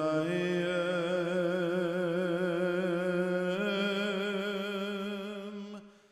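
A man's chanting voice holding one long sung note with vibrato. It steps up to a slightly higher note about three and a half seconds in, then fades out near the end.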